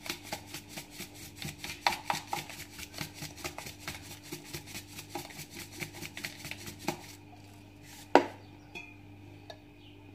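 Spoon clinking rapidly and evenly against a stainless steel pot, about seven strikes a second, as the herb-and-spice marinade is mixed; it stops about seven seconds in, and a single louder knock on the pot follows a second later.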